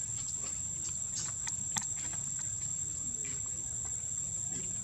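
Insects shrilling steadily at one high pitch, with two sharp clicks about a second and a half in.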